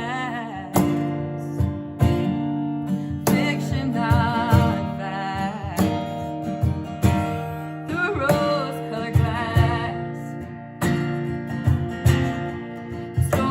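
A woman singing with vibrato on her held notes, accompanied by a strummed acoustic guitar.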